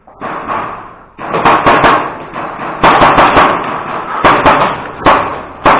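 Airsoft guns firing in several rapid bursts of sharp clicks and snaps, with a burst about every second or so.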